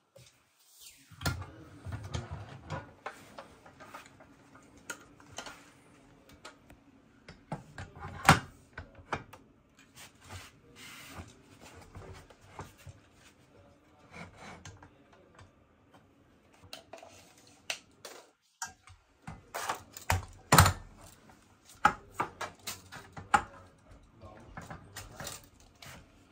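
Scattered clicks, taps and knocks of TV wall-mount hardware and hand tools being handled, irregular throughout, with two louder knocks about eight seconds in and about twenty seconds in.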